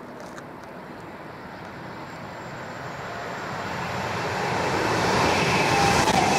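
Class 390 Pendolino electric train approaching at speed on the fast line, the rush of its wheels on the rails growing steadily louder until it sweeps past near the end.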